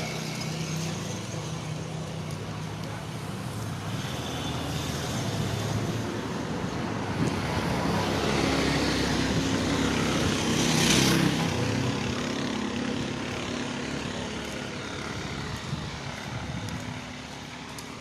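Street traffic: engine drone and tyre noise, with a vehicle passing close by that swells to a peak a little past the middle and then fades away.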